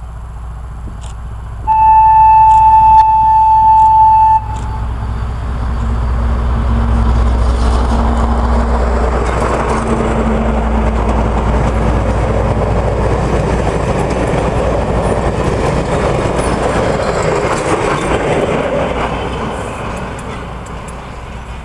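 A D1 diesel multiple unit sounds one long, steady horn blast about two seconds in. It then passes close by with its diesel engine running and its wheels rumbling on the rails, and the noise fades as the train draws away near the end.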